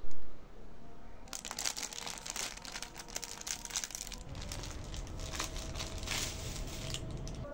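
Clear plastic packaging of a headscarf crinkling as hands handle it and pull it open, starting about a second in and going on until near the end. A brief bump right at the start is the loudest sound.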